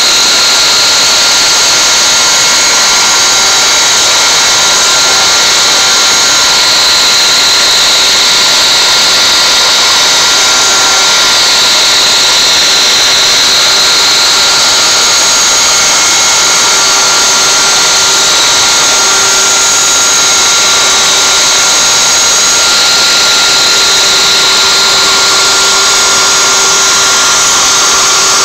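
CNC router spindle running at 24,000 rpm, its 1/8" solid carbide spiral bit cutting knotty alder: a loud, steady high-pitched whine with cutting noise.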